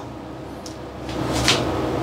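Glass lid lifted off a wok of fish soup that has been boiling, with one short clink about one and a half seconds in. Once the lid is off, the simmering soup gives a steady hiss that grows louder about a second in.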